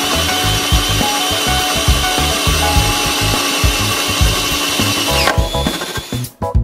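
Makita cordless drill boring into a wooden post, running steadily under load with a high whine, then winding down with a falling pitch about five seconds in as it stops. Background music with a beat plays underneath.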